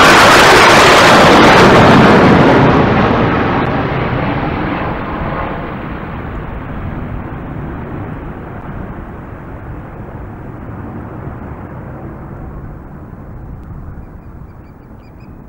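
Low-flying jet aircraft passing over: a loud roar at the start that fades slowly as it moves away, the high hiss dying out first.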